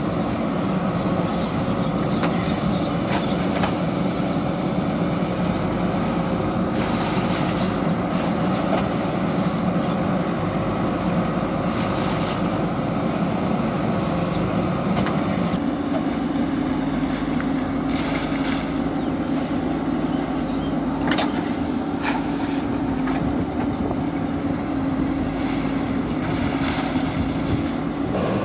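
JCB 3DX backhoe loader's diesel engine running steadily under load as the backhoe works, its pitch shifting about halfway through. A few short knocks are scattered through it.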